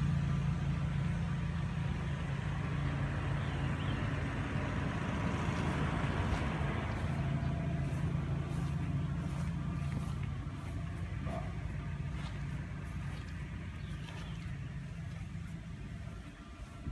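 A steady low engine hum that grows fainter over the last several seconds.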